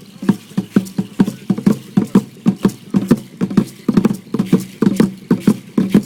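A drum beaten in a fast, steady dance rhythm, about four to five low, pitched strokes a second, accompanying a prehispanic dance.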